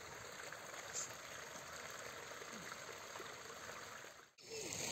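Faint, steady trickle of running water with outdoor background noise; it drops out briefly near the end.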